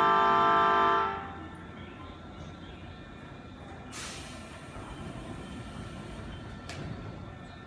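A Nankai 7100-series electric train's horn sounds as a steady chord and cuts off about a second in. Then comes a low rumble as the train starts to pull away from the platform, with two sharp clicks, one in the middle and one near the end.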